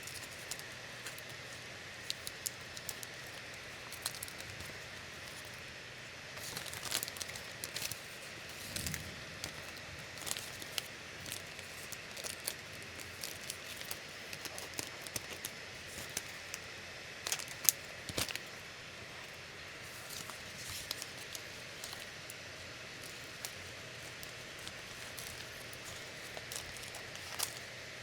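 Hands handling the packaging and parts of an action-camera kit: scattered rustling and small plastic clicks over a steady low hiss, with one sharper click a little past the middle.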